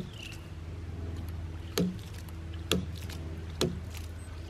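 Ram pump's waste valve slamming shut in a steady cycle, four sharp clacks a little under a second apart starting about two seconds in, over a low steady hum. The pump is running with a standpipe on its drive pipe, which lengthens its cycle.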